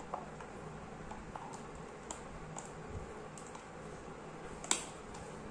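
Light scattered clicks and taps of wires and a screwdriver being worked into the terminals of plastic switch and socket fittings, with one sharper click near the end.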